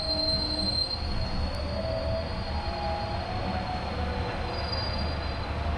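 Train wheels squealing on the rails over a steady running rumble. A high squeal fades about a second in and returns briefly near the end.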